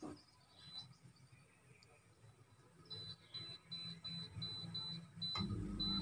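Wall-mounted split air conditioner switching on by remote: a short high beep about half a second in, then from about three seconds in a high tone broken into short pieces at even intervals. Just before the end a click, and the unit's low hum starts.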